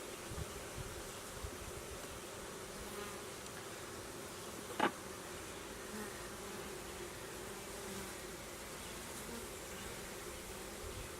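Honeybees buzzing steadily around an open beehive while its frames are inspected. A brief sharp sound cuts through about halfway through.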